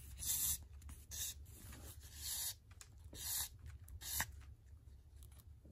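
Sewing thread drawn through the punched stations of a book's cover board and pages in Coptic stitching: about five short hisses, roughly one a second.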